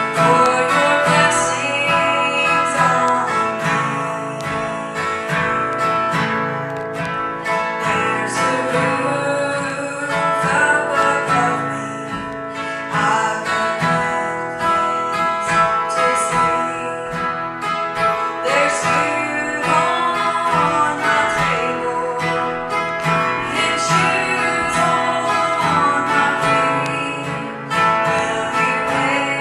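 Music led by a strummed acoustic guitar, playing without a break.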